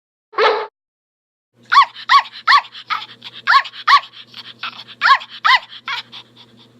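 A dog barks once, then after a short pause gives a quick run of high, sharp yips, about two to three a second, that fade away near the end.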